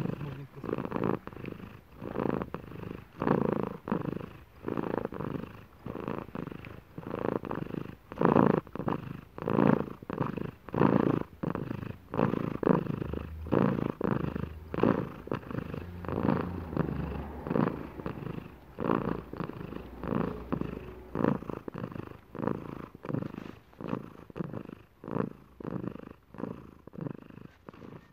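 An elderly ginger cat purring steadily close to the microphone, in even pulses about one and a half times a second.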